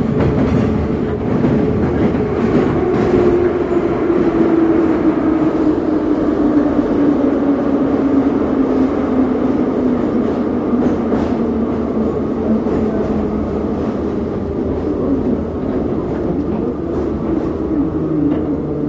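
Metro train heard from inside the passenger car, running with a steady rumble of wheels and motors. A whine slowly falls in pitch as the train slows into a station.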